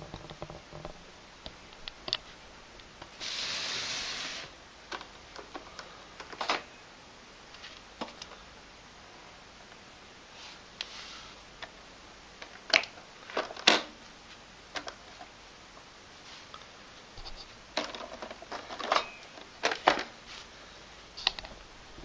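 Hands handling the plastic parts of a robot vacuum cleaner: scattered clicks and knocks, a rustle or scrape lasting about a second and a half about three seconds in, and clusters of sharper knocks around the middle and near the end.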